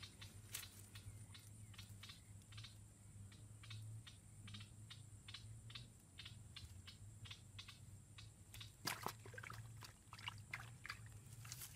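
Faint pond ambience: a steady high hiss with short clicks repeating about three times a second. About nine seconds in there is a brief cluster of louder clicks.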